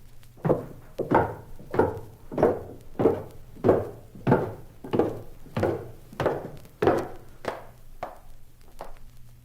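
Hard-soled footsteps walking at a steady pace, about one and a half steps a second, growing fainter near the end.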